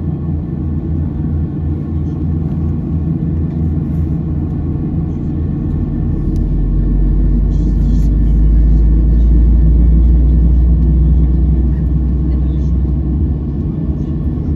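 Cabin noise inside a Boeing 737-700 with its engines running: a steady low drone, with a deep rumble that swells about halfway through and eases off again near the end.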